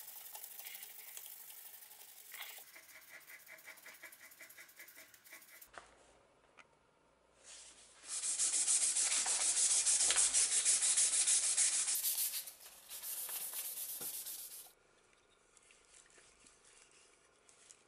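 Sandpaper rubbing back and forth over a chestnut-wood handle: hand-sanding in runs of fast, even strokes, loudest in the middle, stopping about three seconds before the end.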